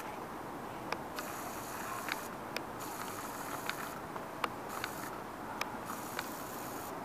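Steady outdoor background noise with scattered sharp ticks at irregular moments and stretches of high hiss that come and go.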